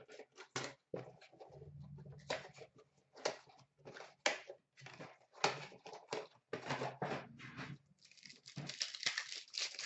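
Plastic-and-foil trading card pack wrappers and packaging crinkling and rustling in irregular bursts as packs are handled and torn open.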